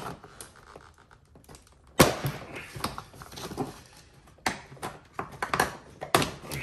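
Plastic fog-light bracket and its push pins being pried and forced with a flathead screwdriver under heavy pressure: a string of sharp clicks and knocks with scraping between them, the loudest about two seconds in. The black inverted push pins hold tight.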